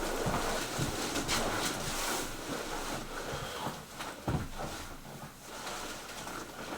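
Rustling and a few soft knocks of a patient shifting and being positioned on a chiropractic treatment table for a side-lying adjustment, with one sharper knock about four seconds in.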